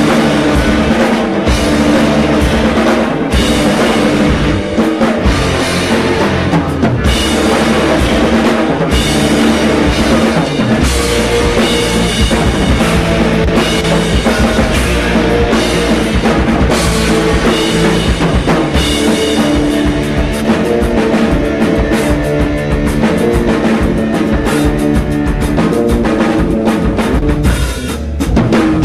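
Post-rock band playing live: a drum kit keeps a steady beat under sustained, layered guitar and bass in a loud, dense passage, with a brief dip in loudness near the end.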